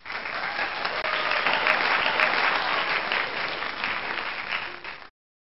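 Crowd applause: dense clapping that starts at once and cuts off abruptly about five seconds in.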